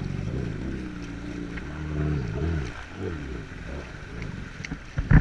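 Personal watercraft (jet ski) engine running, its pitch rising and falling several times.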